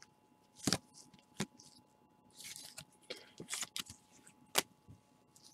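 Handling noise from a trading-card pack being opened by gloved hands: scattered crinkles and rustles of the pack wrapper, with sharp clicks of cards being handled.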